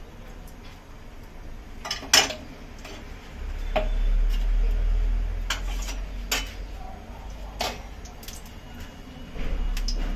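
A non-stick frying pan knocking on the gas stove's grate as it is tilted to spread ghee, and a metal spatula clinking and scraping in the pan: a handful of separate sharp knocks, the loudest about two seconds in.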